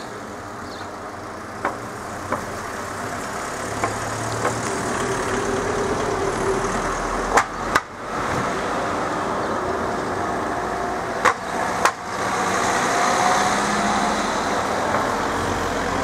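Cars driving one after another over a railway level crossing, engines running. Each car gives a pair of sharp knocks about half a second apart as its front and rear wheels bump over the rails.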